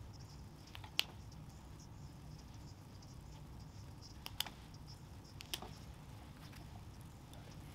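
Stitches being picked out of a sweatshirt hoodie's hem by hand: faint fabric handling with a few sharp little ticks as threads are cut or pulled free, about a second in, around four and a half seconds and five and a half seconds, over a low steady room hum.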